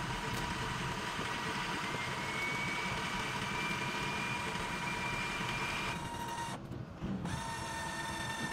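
Turbodiesel pickup engine running at idle, with a steady high whine over a hiss from the turbo and exhaust. The whine rises a little about two seconds in, and the high part briefly drops out near the end. The sound goes with the bad exhaust and turbo that a check-engine code reading pointed to.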